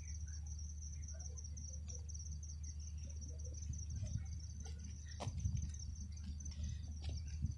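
Crickets chirring in a steady, high, continuous trill, over the low steady rumble of a vehicle moving along the road.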